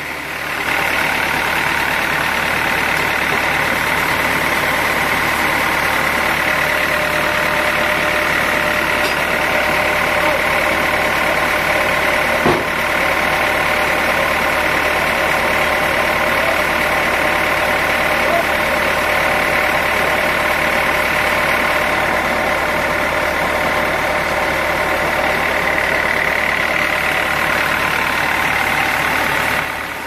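Sawmill machinery running steadily, with a sustained whine. There is a single sharp knock about halfway through.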